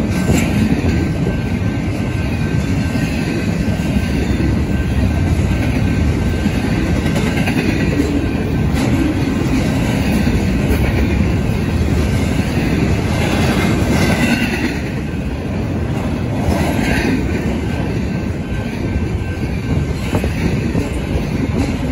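Double-stack intermodal freight train rolling past: a steady rumble of steel wheels on the rail under the well cars, with a few brief higher squeals.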